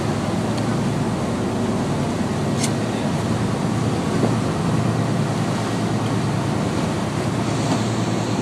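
Steady rumble of a boat under way, with its engine running and water rushing past the hull. There is a faint click about two and a half seconds in.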